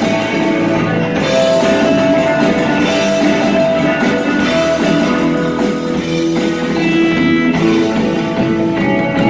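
Live rock band playing amplified guitars over a drum kit, with sustained guitar notes and steady drum and cymbal hits.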